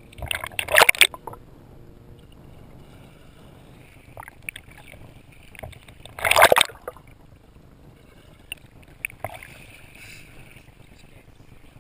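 Pool water splashing as a kayak capsizes and is rolled back upright: a loud splash about a second in, another about six and a half seconds in, and a few small splashes and drips between them.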